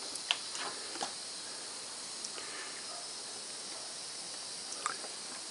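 A few small wooden clicks and taps as the hinged smokebox door and its little latch on a wooden model traction engine are closed and fastened, two in the first second and one near the end, over a steady faint hiss.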